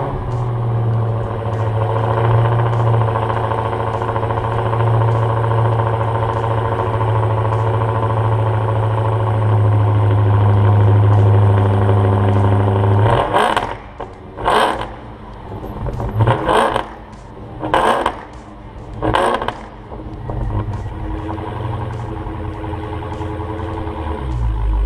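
Motor vehicle engine running with a steady low drone. About halfway through, five short noisy bursts break it up over several seconds, and then the steady running comes back.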